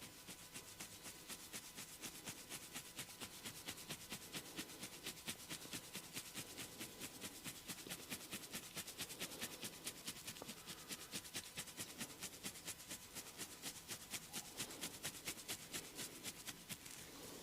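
Fingernails scratching through hair on a scalp in quick, even strokes, about four or five a second.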